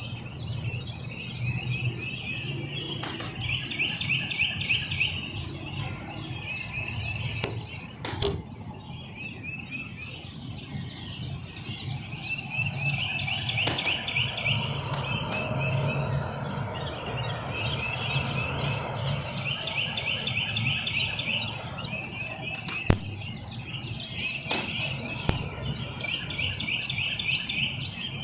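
Birds singing outdoors, a rapid trilled phrase repeated every few seconds, over a steady low hum. A few sharp clicks, the clearest about eight seconds in and near the end.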